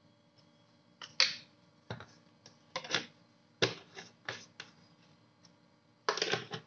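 Hard plastic flour canisters and their lids being handled on a kitchen counter: about ten short, sharp clicks and knocks, with a brief clatter near the end.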